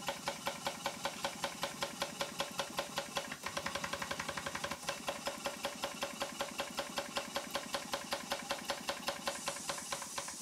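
Twin-cylinder Stuart 5A model steam engine running steadily, beating at about four a second, with the beats closer together for a second or so around the middle. The regular knock is from play in a worn big-end brass.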